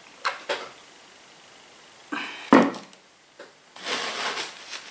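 A woman sniffs twice in quick succession, then sneezes once about two and a half seconds in, a short intake and a sudden loud burst. A breathy rustling noise follows near the end.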